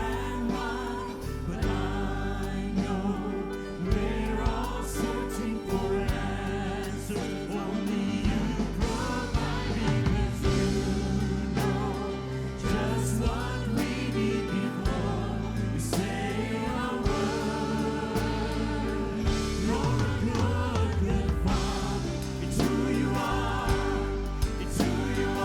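Contemporary church worship music: a band with a steady bass and drums, with voices singing.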